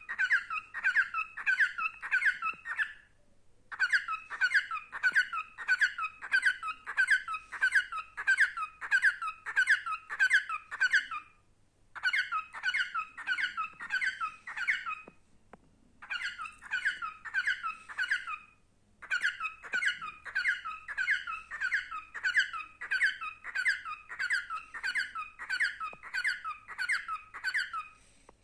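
Male cockatiel chirping a rapid run of short, squeaky, repeated notes, about three a second, in bouts broken by brief pauses.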